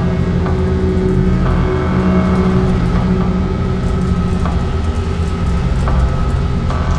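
Abstract electronic ambient drone music: layered low sustained drones under a grainy, rumbling noise texture, with a few sharp clicks. A higher layer of steady tones comes in about one and a half seconds in.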